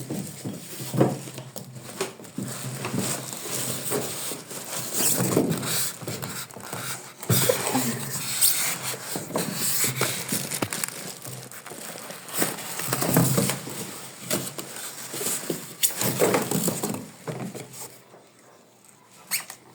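Packaging being handled while a new fan is unboxed: plastic and cardboard crinkling and rustling, with scattered clicks and knocks of the fan's parts being set down.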